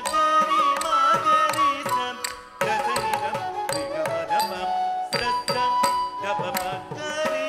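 Carnatic music accompanying a Bharatanatyam dance: a melody with sliding, ornamented notes over a steady drone, marked by regular drum strokes.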